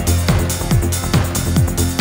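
Electronic dance music with a steady thumping kick drum, a little over two beats a second, over a held bass line and hi-hat ticks.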